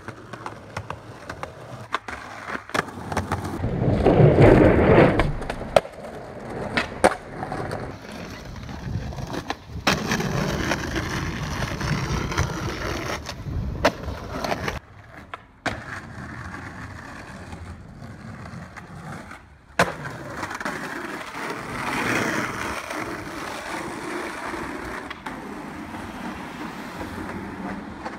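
Skateboard wheels rolling over rough concrete, broken by several sharp clacks of the board as it is popped and landed.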